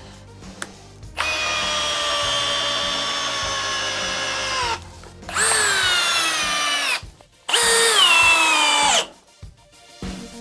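Cordless brushless hammer drills from Ryobi, Ridgid and Milwaukee, run one after another, driving 5-inch LedgerLok structural screws into stacked wood. There is one long run of about three and a half seconds, then two shorter runs of under two seconds each. Each motor whine drops in pitch as the screw pulls down and seats under load.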